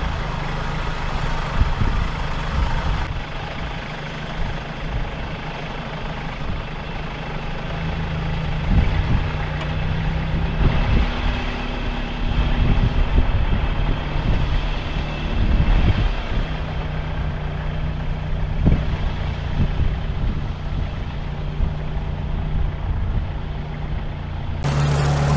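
Toyota LN167 Hilux's 5L four-cylinder diesel pulling through shallow floodwater, its engine note rising and falling several times as the throttle changes, over a steady hiss and a few short knocks.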